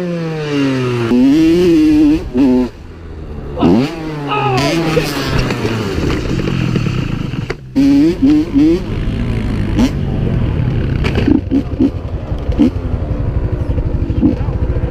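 Dirt bike engine revving, its pitch climbing and dropping several times in the first half. After that a lower, steadier engine sound runs on, with a few short knocks and clatter.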